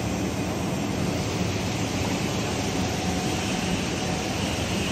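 Steady machinery noise in a large workshop hall: an even roar with a low hum under it.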